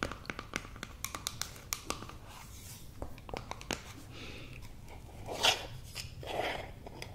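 Fingernails tapping and clicking on a small cosmetic cream jar, with quick ticks at first. Near the end come two scratchy grinding swells as the jar's lid is twisted open.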